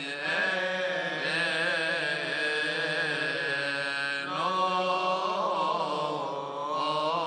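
Men's voices chanting a Coptic liturgical hymn in long, drawn-out notes that wind up and down, with a new phrase starting about four seconds in.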